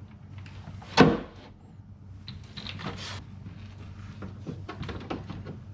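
Clicks, rattles and one sharp knock about a second in, from hands working on the window glass and regulator inside a Jeep ZJ's front door.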